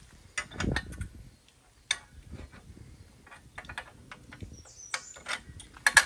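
Irregular metal clicks and clinks as a Drotto boat latch bracket is handled and fitted onto a trailer's steel winch stand, with one sharper click near the end.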